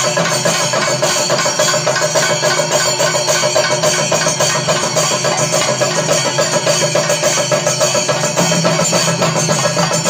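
Thayambaka on chenda drums: the two lead players beat a fast, unbroken roll of stick strokes on their chendas over a group of chendas keeping the beat, with hand cymbals ringing along.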